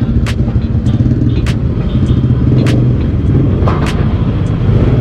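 Small motor scooter engine idling with a steady low rumble, and a sharp tick about every 1.2 seconds.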